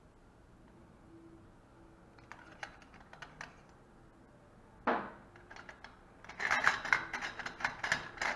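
Stainless-steel surgical instruments, hemostat forceps, clinking and rattling in a steel kidney dish as they are handled. A few light clicks come first, then one sharp clink about five seconds in, then a busy run of rattling near the end.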